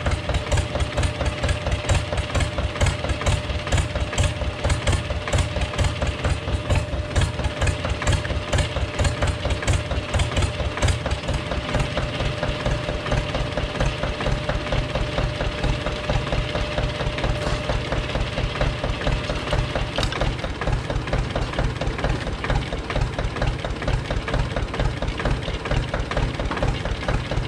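1961 Zetor 25's two-cylinder diesel engine idling with an even, steady firing beat, running after standing unstarted for about 15 years.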